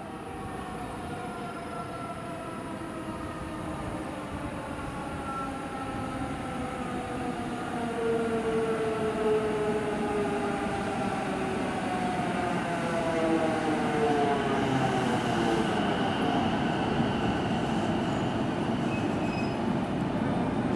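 Electric commuter train pulling into the station. Its motors give a whine of several tones that falls slowly in pitch as the train slows, over a rumble of wheels that grows gradually louder.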